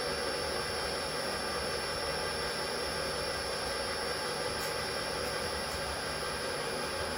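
Brand-new lathe running steadily at 150 RPM on its first warm-up run: an even mechanical whir with a few constant tones.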